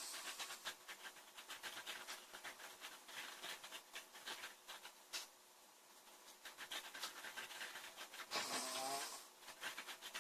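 A sleeping woman breathing noisily and snoring, each breath a rise of hissy noise a few seconds apart, with many small clicks throughout. One louder, pitched snore comes near the end.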